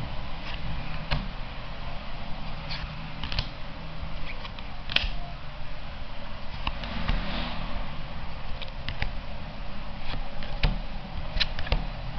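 Trading cards being handled and slid one behind another, with scattered light clicks and flicks of card stock, over a steady low background hum.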